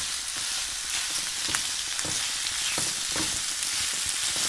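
Diced onions and bell peppers sizzling in olive oil in an enamelled cast iron skillet, stirred with a spatula that scrapes against the pan now and then.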